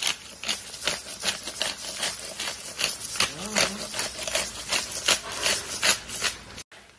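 A spatula stirring and scraping sliced chorizo around a frying pan in an oily tomato sauce: quick, irregular scrapes and taps against the pan, several a second. The sound cuts off abruptly just before the end.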